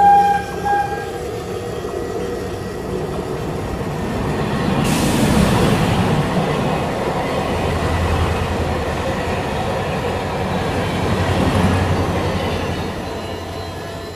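Train running along rails: a steady rumbling clatter that swells twice and eases off, after two short beeps at the very start.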